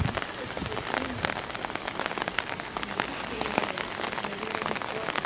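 Water spattering in a dense, steady patter of many small drops and crackles.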